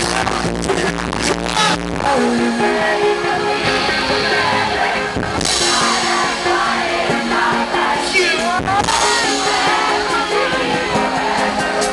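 Live pop-rock band playing with singing, electric guitar and keyboards, heard from the crowd in front of the stage. The deep bass thins out about two seconds in.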